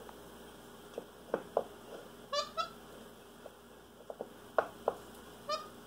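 Capuchin monkey handling a small wooden mouse-in-a-box gag toy: a few light wooden taps and clicks, with two short squeaks about two and a half seconds in and another near the end.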